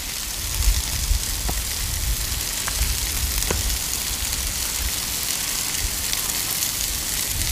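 Steady sizzling of burger patties, bacon and potatoes frying on a hot Blackstone flat-top griddle, with a low rumble underneath and a few faint ticks.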